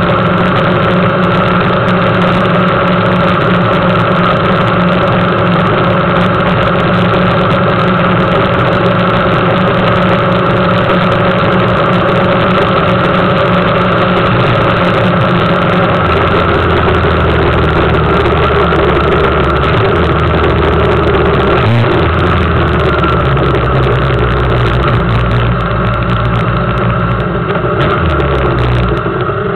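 Suzuki GSX750F motorcycle's inline-four engine running steadily on the move. Its low note changes about halfway through, there is a single short knock a few seconds later, and it gets a little quieter near the end as the bike slows behind a car.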